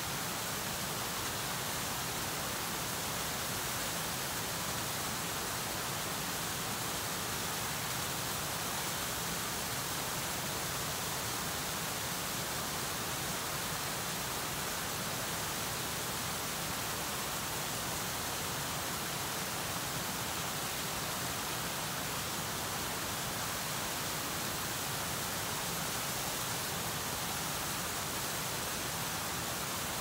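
Gentle waterfall on a stream, water pouring and splashing in a steady, unchanging rush.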